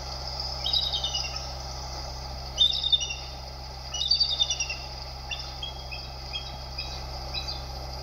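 Bald eagle calling: several runs of thin, high chittering whistles that step down in pitch, the loudest run about two and a half seconds in, over a steady low hum.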